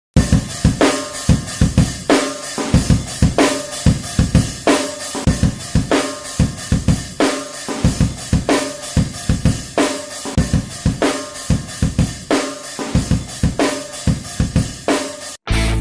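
Music: a drum kit playing a steady beat, with bass drum, snare and cymbals hitting in an even rhythm. It cuts off abruptly just before the end.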